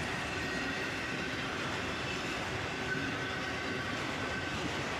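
Freight train cars rolling steadily past on the rails, their wheels making a continuous rumble with a faint, thin, high-pitched squeal over it.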